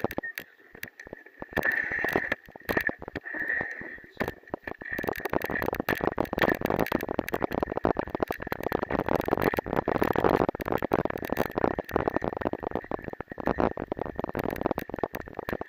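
Bicycle ridden over a rough, muddy forest track, with rattling and knocks from the bumps and wind noise on a camera mounted on the bike. The sound is sparse for the first few seconds, then dense and louder from about five seconds in.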